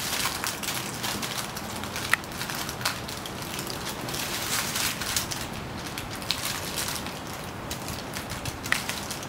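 Aluminium foil crinkling and crackling as its edges are folded and crimped tight around a food parcel to seal it airtight, with a few sharper crackles now and then.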